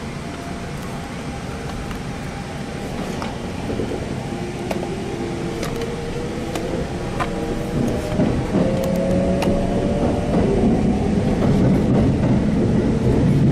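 Kintetsu electric commuter train pulling away from a station, heard from inside the front car: the traction motors give a whine that rises in pitch as it gathers speed, over the running rumble, with sharp clicks of the wheels crossing rail joints and points.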